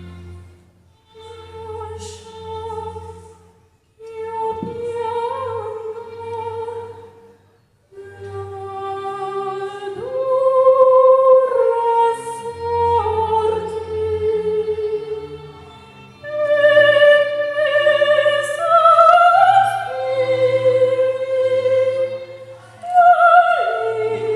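Operatic soprano singing with vibrato, holding long notes in phrases that grow louder after about ten seconds, over a low sustained instrumental accompaniment.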